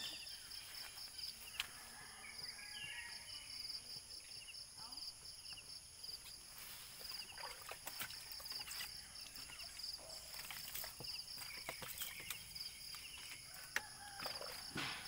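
Insects chirring steadily in high pulsing trills, with scattered light splashes and knocks as a motorcycle is washed by hand with a cloth and a cup of water. Faint distant voices come and go.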